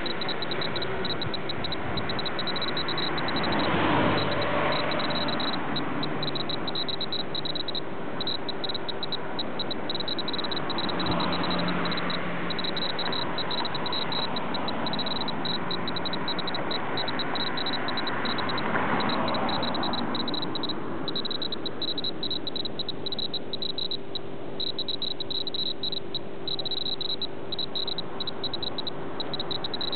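Road traffic passing close by: vehicles swell up and fade away about three times over a steady background noise, with a constant high-pitched buzz throughout.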